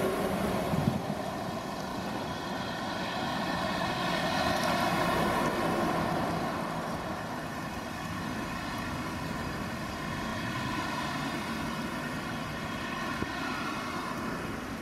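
Diesel engines of Volvo crawler excavators running steadily with a droning hum during demolition work, with a single knock about a second in.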